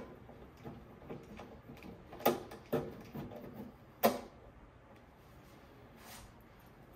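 Screws being fitted into the back of an A&D GX-7100LTD cassette deck's cabinet with a screwdriver: small clicks and scrapes, with two sharp knocks about two and four seconds in.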